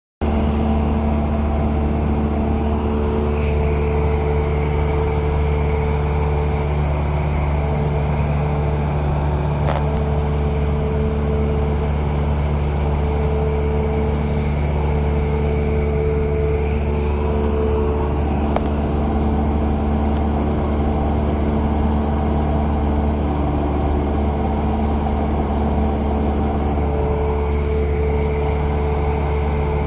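Steady drone of a single-engine Cessna's piston engine and propeller, heard from inside the cabin in flight.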